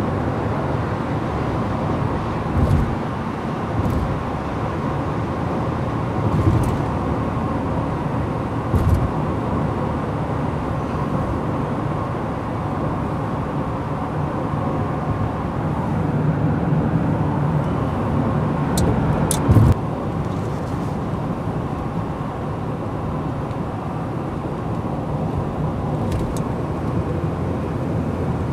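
Steady road noise of a car at highway speed heard from inside the cabin: low rumble of tyres and engine, with about half a dozen short thumps spread through it.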